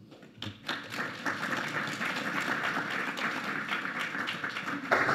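Audience applauding, many hands clapping, building up within the first second.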